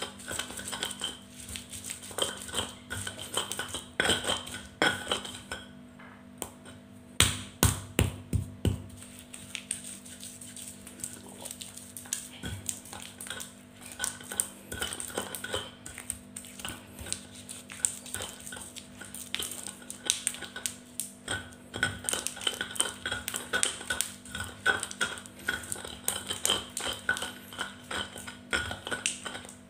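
Stone pestle grinding and scraping chili paste in a stone mortar (Indonesian ulekan and cobek), with irregular knocks and rubbing strokes and a run of sharper knocks about seven seconds in. Palm sugar is being ground into the chili and shrimp-paste sambal for rujak.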